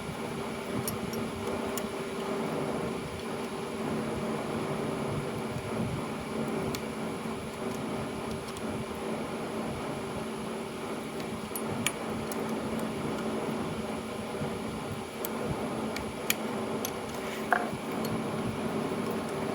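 Steady mechanical hum with a couple of held tones, like a running fan, with a few sharp clicks near the middle and toward the end.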